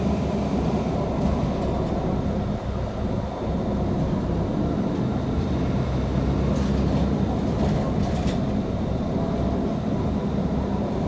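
Steady engine and road rumble inside a moving city bus, with a few faint clicks and rattles about two thirds of the way through.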